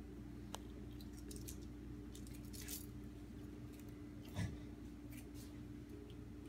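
Faint handling sounds: small clicks and short rustles as monofilament fishing line is worked through crimps by hand, with one soft thump about four seconds in, over a steady low hum.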